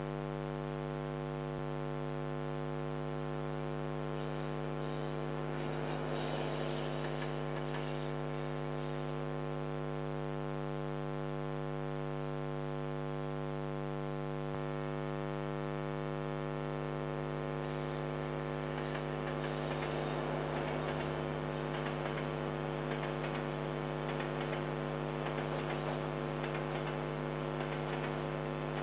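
Steady electrical mains hum with many overtones in a security camera's audio. A faint noise swells over it briefly about a fifth of the way in, and again through the second half.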